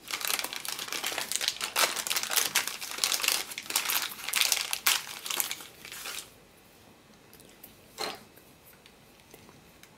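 Thin plastic packaging bag crinkling as it is handled and opened to unwrap a small camera mount, stopping about six seconds in. A single click follows about eight seconds in.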